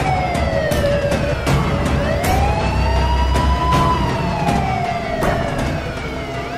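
Vehicle siren wailing, its pitch sweeping slowly down, up and down again, over a low rumble.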